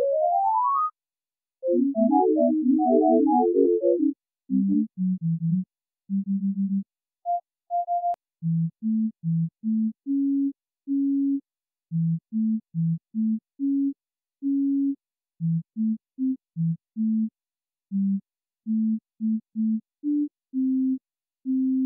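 Synthesized electronic music made of plain single tones: a rising sweep at the start, a quick run of higher notes, then a simple melody of short low notes played one after another.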